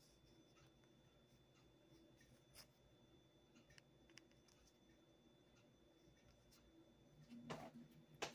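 Near silence: kitchen room tone with a few faint clicks and a brief soft sound near the end.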